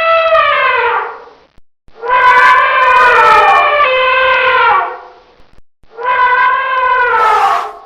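Wild elephant trumpeting: three long calls, the first ending about a second in, the second the longest at about three seconds, the third starting about six seconds in, each dropping in pitch as it ends.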